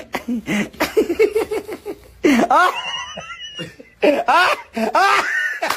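People laughing hard: a run of quick giggling pulses, then high-pitched squealing laughs about two seconds in and again near the end.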